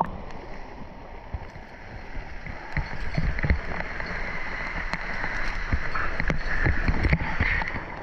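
Waterfall water rushing and splashing, with wind buffeting the microphone in uneven low thumps and a few small knocks.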